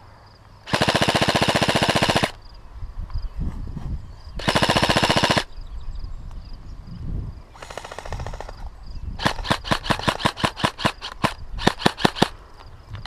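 Electric airsoft rifle, the G&G CM16 Raider, firing two long full-auto bursts, then a shorter fainter burst and a quick run of single shots.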